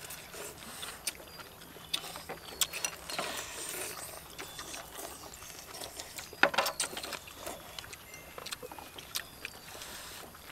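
People eating noodle soup: slurping noodles and broth, with scattered clicks of chopsticks and a ladle against ceramic bowls and a steel wok.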